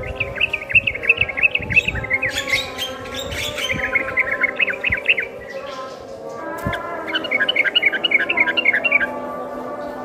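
A yellow-vented bulbul and a Javan myna calling together: quick runs of short, high chirps, several a second. The chirps break off about five seconds in, then a second run starts a moment later.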